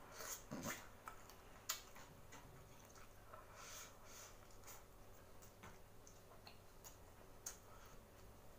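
Faint eating sounds of a person eating boiled seafood with his fingers: scattered lip smacks and mouth clicks from sucking his fingers and chewing, the sharpest just under two seconds in.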